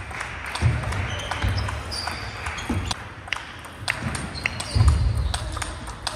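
Table tennis balls clicking irregularly off paddles and tables across a busy hall, over a steady murmur of the hall. A few low thumps stand out, the loudest near the end.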